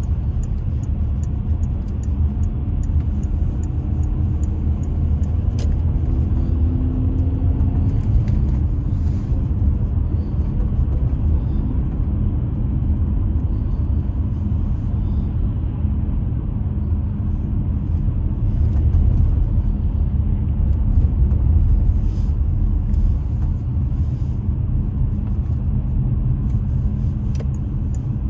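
A car being driven on a snowy winter road: the steady low rumble of its engine and tyres.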